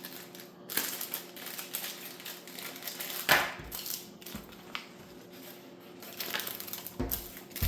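Handling noise of small repair tools and a lens kit being packed into a bag: irregular rustling and light clicks, with a louder rustle about three seconds in and a thump near the end.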